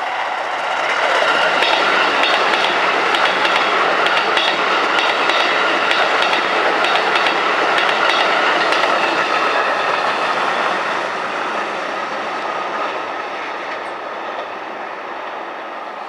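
Shin-Keisei 8900 series electric train passing close by, its wheels clicking over the rail joints. The sound swells about a second in and then fades steadily from about two-thirds of the way through as the train draws away.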